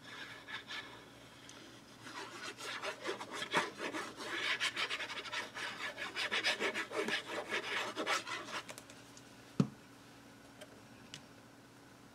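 Plastic tip of a liquid glue bottle scraping along the edges of a sheet of paper as glue is laid down, a dense run of fine scratchy ticks lasting several seconds. Shortly after it stops there is a single sharp knock.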